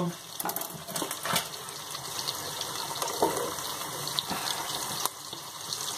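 Chopped onions sizzling steadily in hot oil and butter in a pan, with a few light knocks and scrapes as pieces of sweet red pepper are pushed off a wooden chopping board into the pan.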